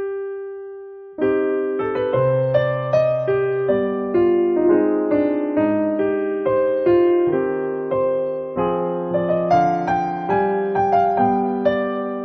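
Piano music: a single note rings and fades, then about a second in a melody with chords starts up and runs in a steady rhythm.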